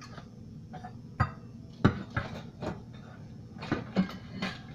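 Kitchen clatter: a series of short, sharp knocks and clinks of cookware and utensils being handled on a counter, about seven in the space of four seconds.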